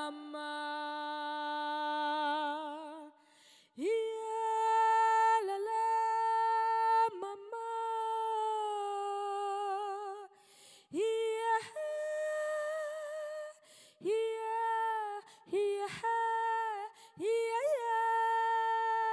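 Wordless a cappella female vocal, humming or singing long held notes with vibrato, in phrases broken by short pauses.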